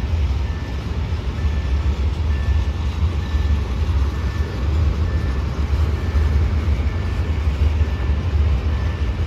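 Freight train of open-top gondola wagons rolling past close by: a steady, deep rumble of wheels on rail.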